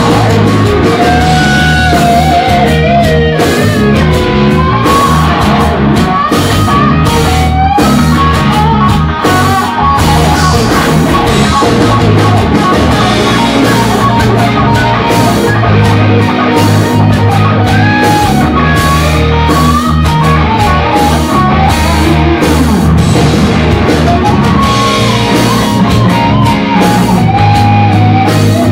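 Live rock music: a distorted electric guitar playing a lead line full of string bends and vibrato over drums.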